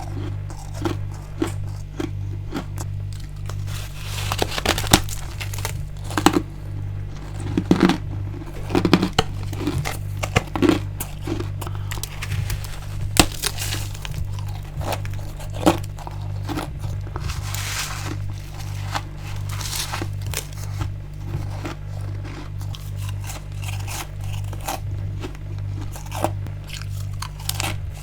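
Close-up crunching bites and chewing of freezer frost and chunks of freezer ice, with sharp crisp crunches scattered irregularly throughout. A steady low hum pulses regularly underneath.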